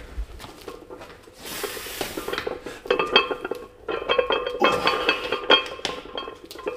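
Metal gym weights clinking and rattling: a rapid, irregular run of short metallic chinks that ring briefly, starting about two and a half seconds in.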